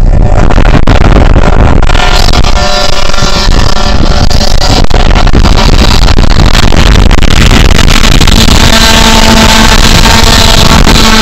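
Loud, steady rushing roar of a car moving at highway speed: wind and road noise on the microphone, with a steady low hum joining about eight seconds in.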